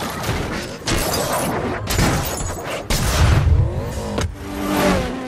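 Action-film sound mix: sharp crashes and impacts roughly once a second over a low car-engine rumble and background score, with a rising whine a little after four seconds.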